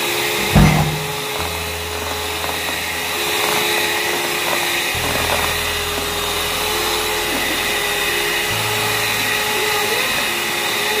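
Electric hand mixer running steadily with a high whine as its twin beaters mix cocoa powder into brownie batter in a bowl. A thump about half a second in.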